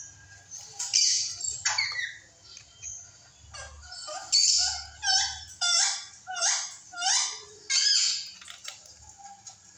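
A bird chirping, a quick run of short calls that each drop in pitch, coming thickest in the middle of the stretch.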